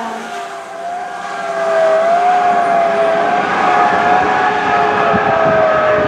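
Pierce Enforcer fire engine driving away with its siren sounding: a held, slightly wavering wail that sinks slowly in pitch, over the noise of the truck on the wet road.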